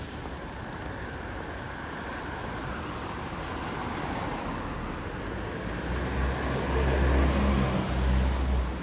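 A motor vehicle passing on a wet street: tyre hiss builds over several seconds, with a low engine hum loudest near the end, then drops away suddenly.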